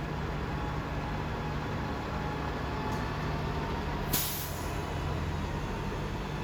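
Transit bus engine running steadily, with one short, sharp hiss of the air brakes about four seconds in.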